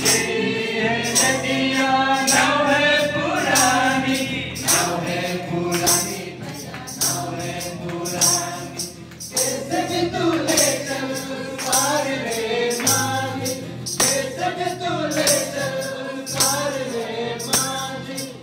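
A mixed group of singers singing a gospel hymn into handheld microphones, amplified through a loudspeaker, over a steady percussion beat of about two strokes a second.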